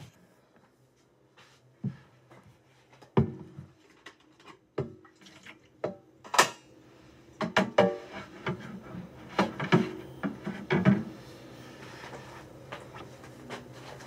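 Scattered knocks and clatter of kitchen items being handled on a counter, growing busier about halfway through, over a faint steady low hum.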